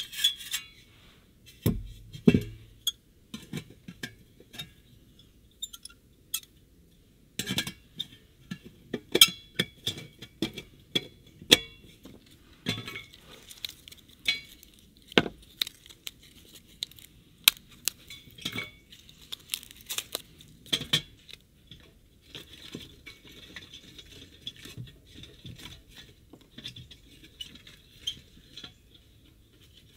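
Metal parts of a small perforated wood-burning camp stove clinking and scraping together as they are fitted and nested by hand: an irregular string of sharp metallic clinks, each with brief ringing. A couple of duller knocks come about two seconds in.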